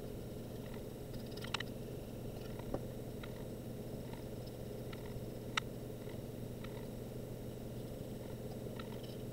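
Faint scratching and tapping of a small paintbrush working paint onto an airplane kit's tail piece, with a few slightly louder clicks, over a steady low room hum.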